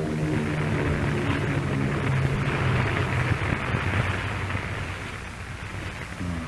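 Propeller aircraft engines droning overhead: a low, steady hum with a rushing hiss that swells in the middle, then fades away over the last couple of seconds.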